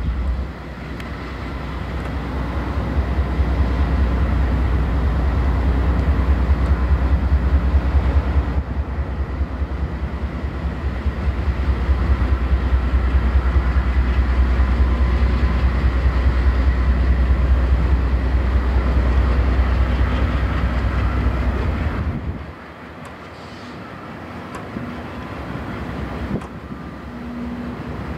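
Wide-cab diesel freight locomotives rolling slowly past, their engines running with a heavy, steady low rumble. About three-quarters of the way through, the sound drops off sharply to a quieter, steady running.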